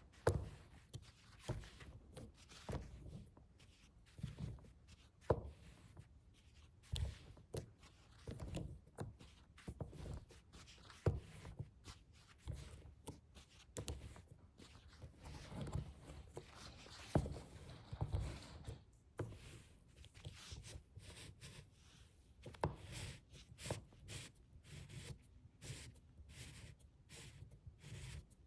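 Close-miked hands on a suitcase: irregular taps, knocks and clicks, with a longer stretch of scratching or rubbing about halfway through.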